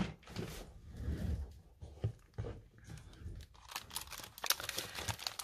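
Plastic packaging bags and cardboard-backed packets rustling and crinkling as they are handled and shifted in a pile, in scattered short crackles that come thicker in the second half.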